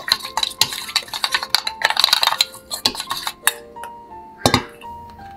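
Metal spoon stirring a seasoning sauce in a stainless steel bowl, with rapid scraping clinks against the metal for about three seconds, then one sharp clink near the end. Soft piano background music plays underneath.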